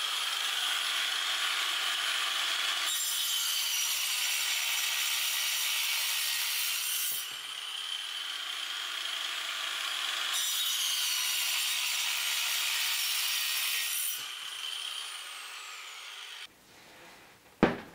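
Angle grinder fitted with a toothed circular-saw blade running with a steady high whine and cutting through a wooden board twice, the sound turning harsher and louder during each cut. Near the end the motor winds down and stops, followed by a sharp knock.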